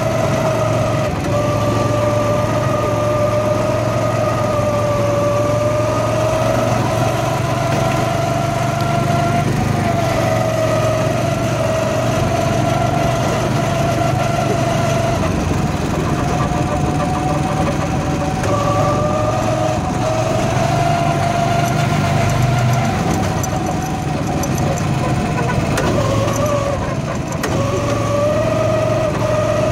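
Go-kart engine running steadily under way, its pitch rising and falling a little as the kart goes through the track's turns.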